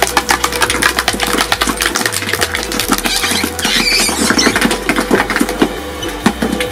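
Twin-shaft shredder's toothed cutter discs chewing up a plastic hand: a dense, irregular rattle of cracks and snaps over the steady hum of the machine's drive, with a brief higher squeal near the middle.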